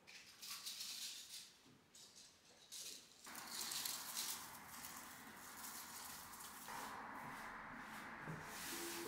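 Dry rustling and crackling of dried flowers and grass stems being handled. Near the end, hands brush loose dried plant bits across a wooden tabletop.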